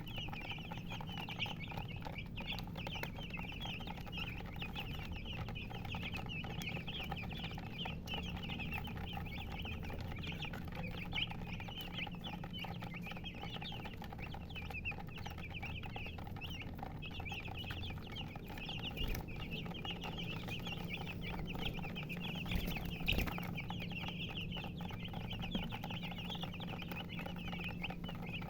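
A brood of baby chicks chirping nonstop, many short high peeps overlapping, over a steady low hum.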